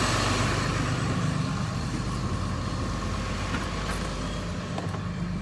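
A vehicle engine idling: a steady low rumble under an even hiss.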